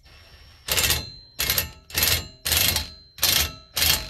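Cordless impact wrench driving a bolt into a metal glider-chair frame in six short trigger bursts, about one every half second. The bolt is being snugged only lightly, just until the plastic spacer touches the frame.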